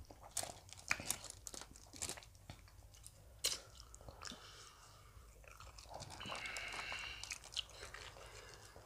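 Faint close-up chewing and crunching of fried chicken: a string of short, sharp, wet mouth clicks and crunches at an uneven pace.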